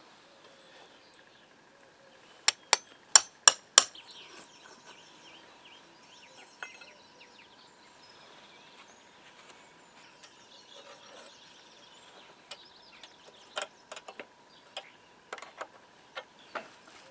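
Sharp metal-on-metal clanks from work on steel railway track and fish plates: five quick strikes about three seconds in, then a string of lighter knocks near the end. Birds chirp faintly in between.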